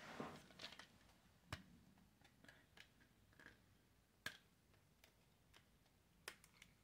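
Near silence broken by a few faint, sharp taps and clicks of small objects being handled, the clearest about a second and a half, four, and six seconds in.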